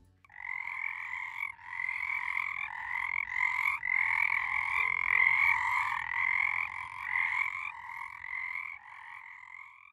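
Frogs croaking: a steady run of short calls, roughly one a second, each rising slightly in pitch, fading out near the end.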